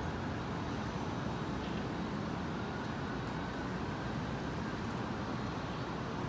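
Steady hum of city traffic on the street below, an even wash of noise with no single vehicle standing out.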